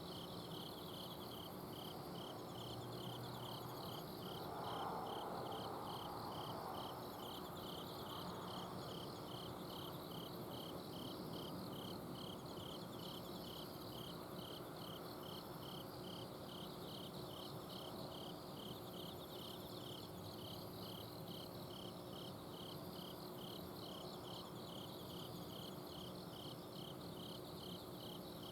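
Autumn night insects chirping: one insect repeats short chirps at an even pace, about two a second, over softer trilling from others. A steady low hum from an air conditioner's outdoor unit runs underneath.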